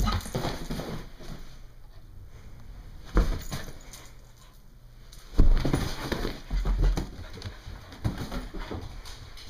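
Several bursts of bumping and rustling as a Brittany puppy scrambles about on a couch and carpet, with the handheld camera jostled against her.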